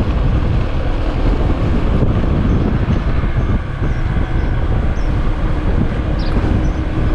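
Wind buffeting the microphone of a moving vehicle, with a steady low rumble of road and engine noise underneath.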